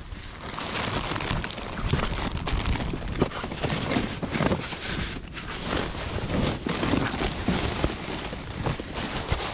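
Plastic trash bags and cardboard boxes rustling and shifting as a gloved hand rummages through a full dumpster: a continuous rustle broken by many small irregular knocks.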